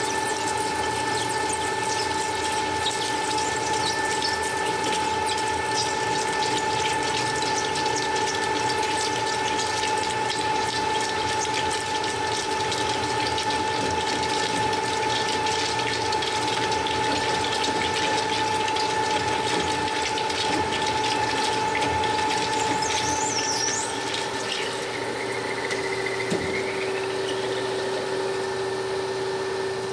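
CNC machine at work, a steady whine of several held tones with a crackling hiss over it. A brief rising whine comes about three-quarters of the way through.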